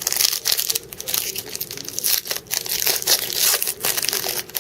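Plastic wrapper of a 2013 Panini Elite football card pack being torn open and crinkled by hand, a dense run of crackles and rustles.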